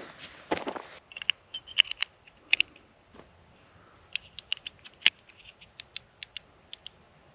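Wood campfire crackling: irregular sharp pops and snaps, a few at a time, from about a second in. A couple of soft thuds, likely footsteps, come in the first second.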